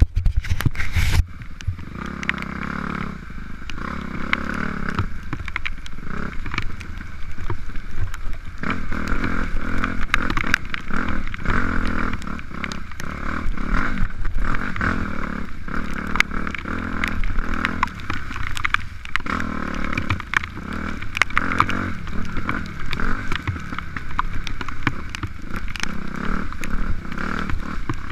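Dirt bike engine running and revving up and down while riding, with many small knocks and rattles from the bike over rough ground and a loud knock about a second in.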